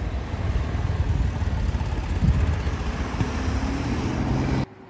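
Road traffic on a city street: a steady rumble and hiss of cars. It cuts off suddenly near the end.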